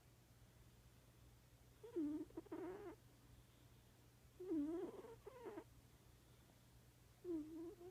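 Sleeping cat snoring: three snoring breaths about two and a half seconds apart, each lasting about a second.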